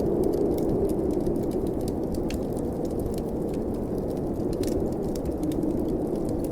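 Steady snowstorm wind blowing with a low howl, with a fireplace's wood fire crackling in many small, quick clicks over it.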